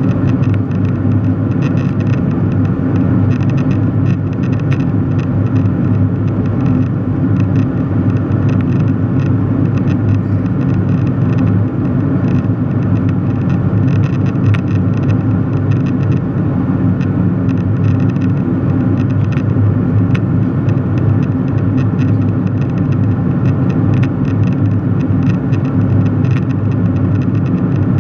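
Low, steady drone inside a jet airliner's cabin at cruise altitude: jet engine and airflow noise through the fuselage.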